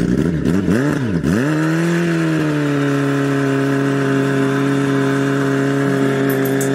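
Sport-bike engine revved in three quick blips, then held at high, steady revs while the rear tyre spins in a smoking burnout.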